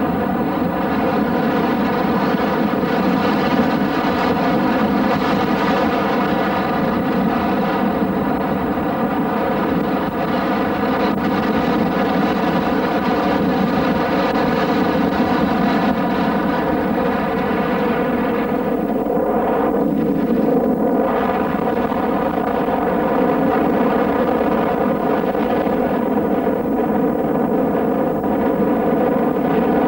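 A light aircraft's piston engine running steadily at constant power, a continuous even drone that does not change in pitch.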